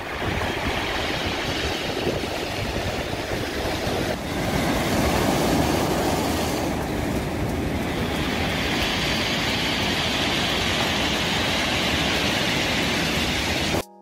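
Sea waves breaking and washing up a beach, with wind buffeting the microphone as a loud, steady rushing rumble that cuts off abruptly near the end.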